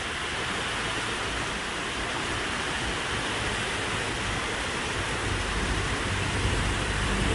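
Heavy downpour of rain, a steady even hiss, with a low rumble growing in near the end.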